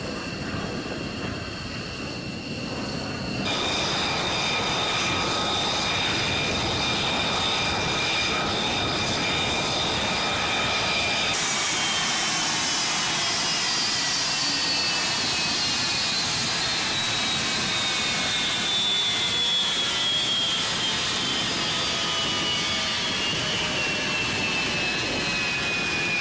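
Fighter-jet engine noise from an F-35A Lightning II's turbofan: a steady rush with high whining tones that steps louder about three seconds in. After a change about eleven seconds in, a high whine glides slowly down in pitch over the rest of the stretch.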